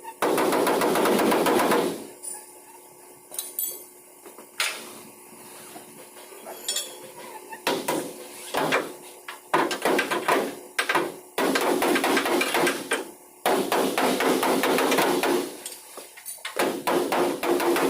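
Rapid hammering on a truck's sheet-metal body panel, in long fast runs broken by quieter pauses with a few scattered single knocks, as dents are beaten out.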